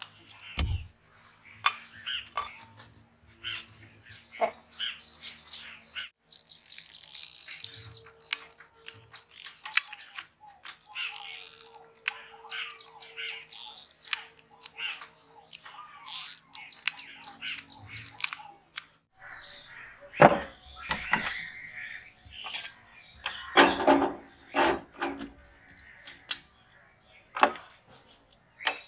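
Scattered clicks and knocks of metal pipe and motor parts being handled and fitted together, loudest about two-thirds of the way through, with small birds chirping in repeated high trills.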